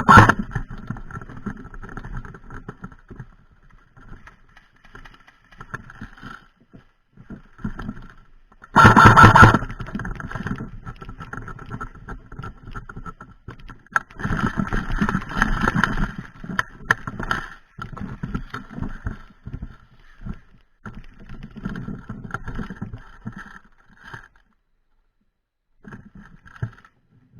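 Airsoft electric gun (AEG) firing on full auto: one burst cuts off just after the start, and a second burst of about a second comes about nine seconds in, each a rapid rattle of shots. Between the bursts come quieter, irregular knocks and rustles.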